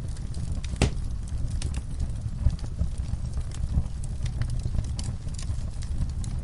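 Wood fire crackling and popping: irregular sharp snaps over a steady low rumble of the burning fire, with one louder pop about a second in.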